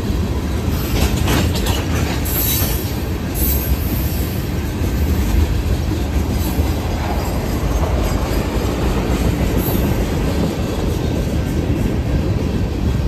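Freight train cars rolling past: a steady rumble of wheels on rail with clickety-clack from the rail joints, and brief high-pitched wheel squeal between about one and four seconds in.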